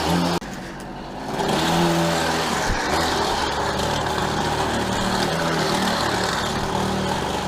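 Go-ped GSR25 scooter's small two-stroke engine running under way. It drops off suddenly about half a second in, picks up again about a second later, then runs on steadily.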